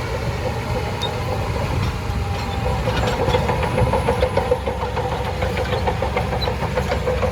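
Shantui DH17C2 bulldozer's diesel engine running steadily, with rapid clicking and clattering joining in from about three seconds in.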